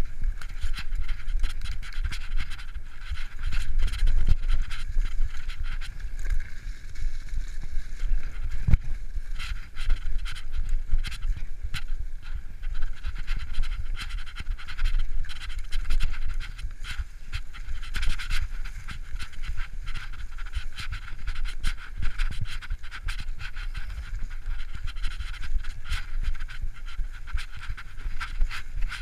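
Mountain bike riding down a dirt forest trail: tyres rolling over dirt, roots and leaves, the bike rattling and knocking over bumps, with a sharp knock about nine seconds in. The rider's hard, rhythmic breathing runs through it.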